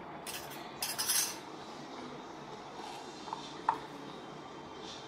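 A metal spoon and stainless steel cookware clinking and scraping: a short clatter about a second in, then two small ringing clinks a little past three seconds.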